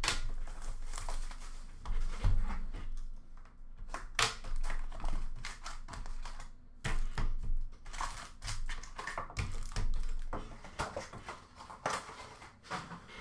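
Cardboard hobby box and foil card packs being handled: irregular clicks, taps and rustling as the box is opened and the packs are pulled out and set down on a glass counter.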